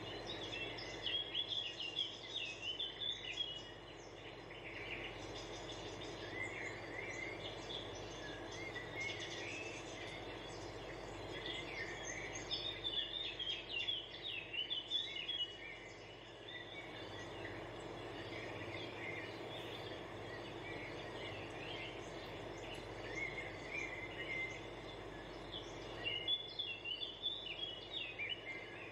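Small birds chirping in repeated bouts of quick, high twittering over a steady background hiss.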